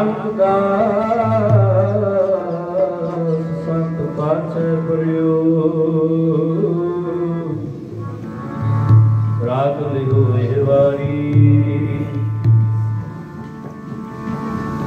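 Sikh Gurbani kirtan: a man sings a slow, gliding melodic line over the steady sustained tones of a harmonium. A few deep tabla strokes come in near the start, and a run of them follows past the middle.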